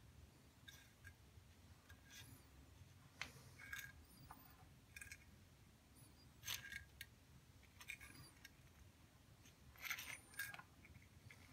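Faint, scattered light scrapes and ticks of a thin metal wire being moved over and touching a glazed ceramic tile, over a low room hum.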